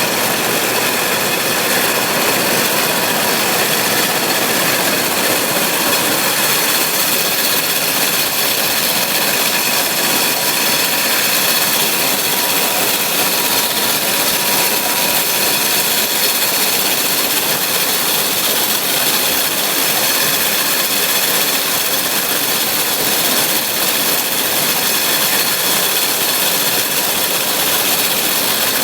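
New Holland 848 round baler and the tractor driving it running steadily while the baler's tying arms wrap twine around a finished bale.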